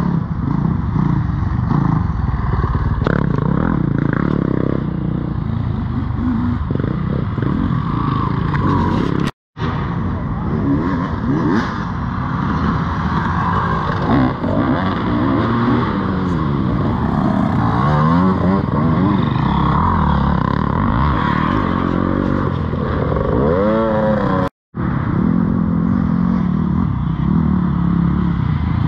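Dirt bike engines running hard, revs rising and falling as the bikes accelerate and back off. The sound cuts out for an instant twice, about nine seconds in and near the end.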